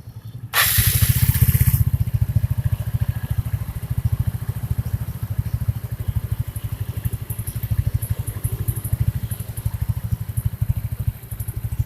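Yamaha Mio scooter's single-cylinder four-stroke engine starting up about half a second in, then idling with an even beat. The CVT cover is off, and the idle runs without the grinding noise: the rubbing is in the cover area.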